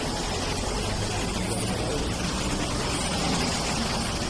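Vehicle engine running with a steady low hum, heard from inside the vehicle, under an even hiss.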